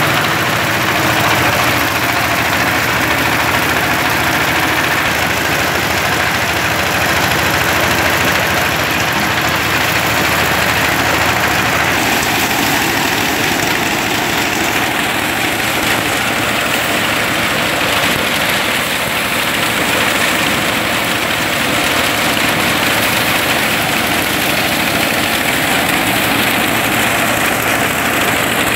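Small diesel engine driving a paddy thresher, running steadily while rice stalks are fed into the threshing drum. The sound changes a little about twelve seconds in, with less low rumble afterwards.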